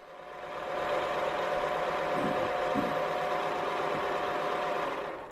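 Small workshop machine tool's electric motor starting and running up to speed over about a second, then running steadily with a hum and whine, cutting off at the end.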